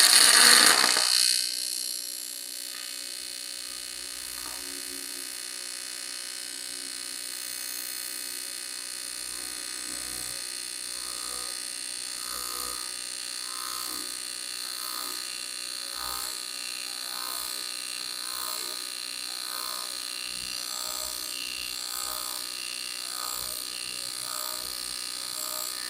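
AC TIG welding arc on 6061 aluminium, loud as it strikes and comes up to heat, then settling into an even electric buzz with a soft regular pulse about one and a half times a second.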